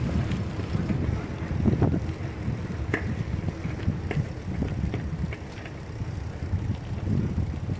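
A low, uneven rumble of open-air background noise on the camera microphone, with a few faint ticks.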